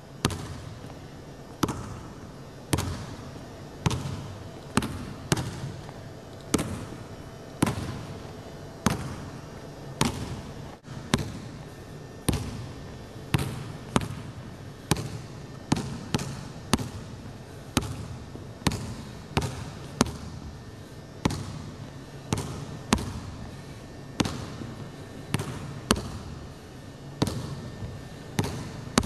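Basketball dribbled on a hardwood gym floor: single hard bounces about once a second, each ringing briefly in the gym, over a faint steady low hum.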